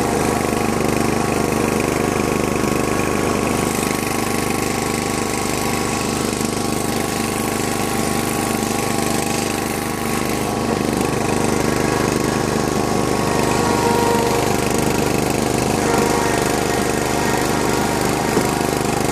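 Snapper zero-turn mower engine running steadily as the mower is driven and shifted with its joystick; the owner says it runs great.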